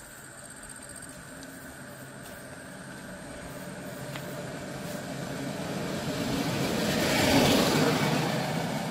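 A vehicle approaching and passing close by: its sound grows over several seconds, is loudest about seven seconds in, then fades away.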